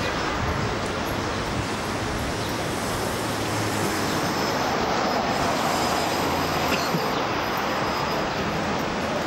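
Steady, even roar of vehicle noise with a low hum underneath.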